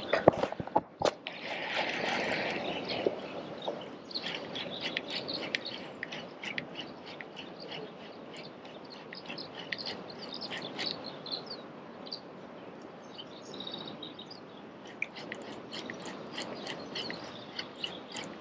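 Daiwa Fuego baitcasting reel cast: a few sharp clicks in the first second, then a brief whir as line pays out, followed by the lure being reeled in. Small birds chirp throughout.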